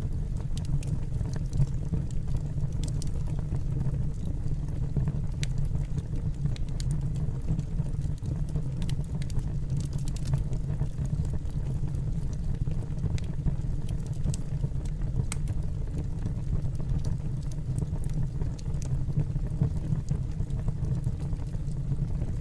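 A steady low rumble with faint, scattered crackling ticks over it.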